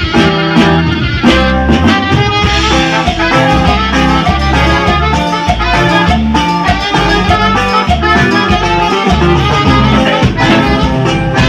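Cumbia music playing with a steady beat.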